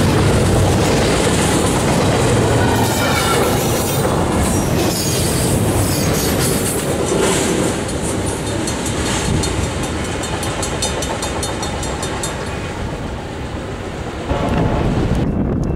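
Canadian Pacific double-stack container freight train rolling past, its cars running by steadily, then easing off as the last cars pass about eight seconds in. A train horn starts sounding in the last second or so.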